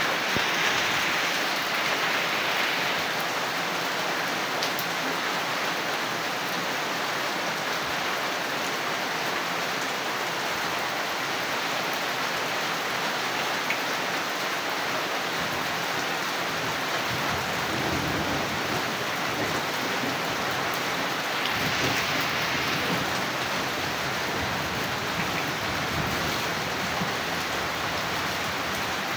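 Steady downpour of rain splashing on puddled ground, an even rushing hiss that never lets up.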